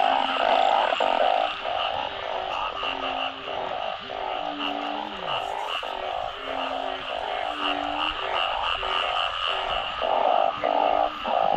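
Dense chorus of many frogs calling together in a rain-flooded field, calls overlapping and repeating several times a second, with some lower drawn-out croaks mixed in, one of them falling in pitch: a breeding chorus after heavy rain.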